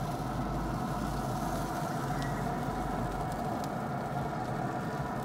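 Camp Chef SmokePro SG30 pellet grill running: a steady hum from its fan, with a few faint ticks.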